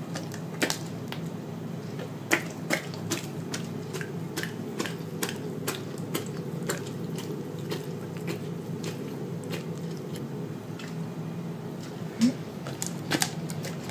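Doberman licking and smacking its lips as it eats yogurt off a spoon: irregular sharp wet clicks, a few per second, over a steady low hum.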